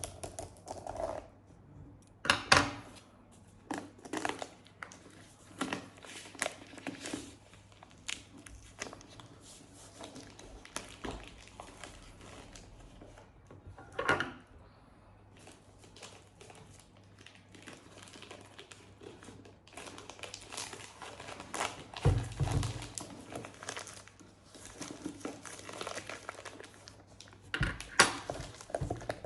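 Plastic packaging crinkling and rustling as a boxed camera gimbal is unwrapped and handled, with irregular crackles and sharp clicks. A dull thump sounds a little past two-thirds of the way through.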